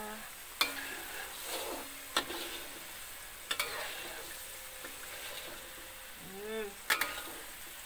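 Metal spatula stirring and scraping through spice paste frying in a metal wok, with a steady sizzle and several sharp clinks of the spatula against the pan. The ground chili paste is being fried down until cooked.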